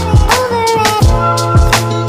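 Background music with a steady beat of low drum hits about twice a second and a gliding melodic line.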